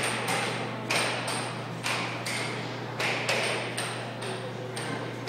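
Mechanism of a coin-operated mechanical diorama knocking in a steady rhythm, about two knocks a second, over a steady low hum.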